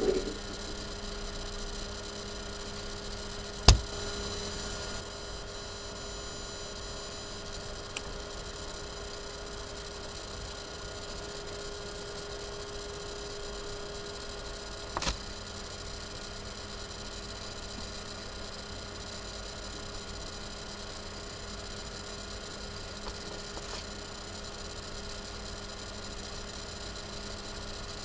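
Steady electrical hum, with a sharp knock about four seconds in and a smaller one around fifteen seconds.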